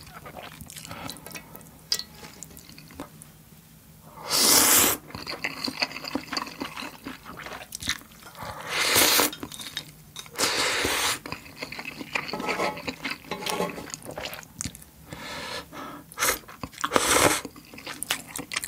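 Instant ramen noodles slurped from a small bowl in four loud slurps: about four seconds in, around nine and eleven seconds, and near the end. Between them there is chewing and small clicks of chopsticks against the dish.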